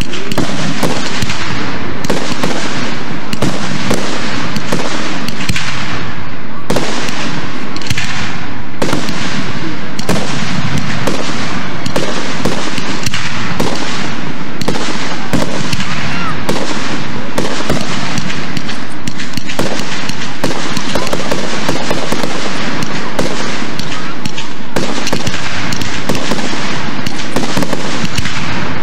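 Fireworks going off in rapid succession: launches, aerial bursts and crackling stars, loud and near-continuous with sharp bangs packed close together.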